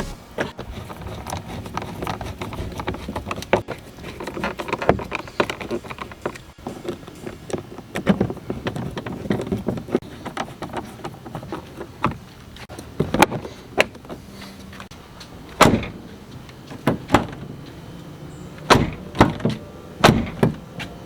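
Jeep Wrangler door and its newly fitted metal handle being worked: a series of sharp clicks and knocks, louder and more frequent in the second half.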